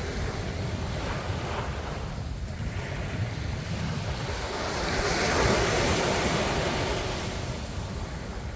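Sea waves breaking and washing in a steady rush, with one wave swelling to its loudest about five to six seconds in before easing off.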